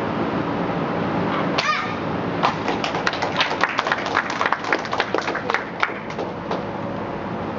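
A child's short, sharp kiai shout about one and a half seconds in, then a few seconds of scattered clapping from a small group that dies away.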